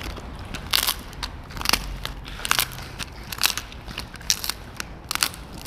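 A border collie chewing a smoked duck carcass treat, about six loud crunches under a second apart as its teeth crack the dried bone.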